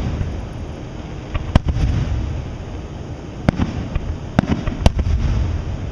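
Aerial firework shells bursting: a sharp bang about a second and a half in, then three more in the second half, over a steady low rumble of further booms.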